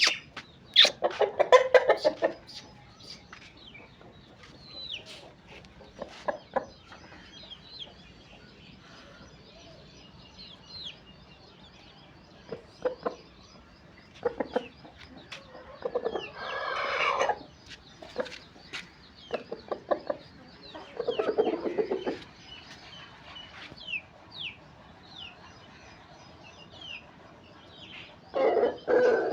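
Chickens clucking in a few loud short bouts, with a longer, higher call about 16 seconds in. Thin high peeps like chicks come and go throughout.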